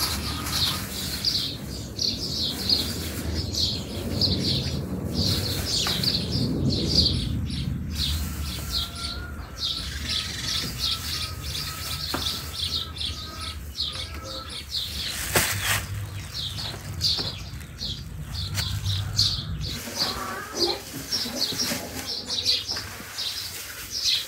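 Rapid, high-pitched chirping repeated a few times a second throughout, with a low rumble under it for the first several seconds. Now and then there is the crinkle of plastic bags of meat being handled.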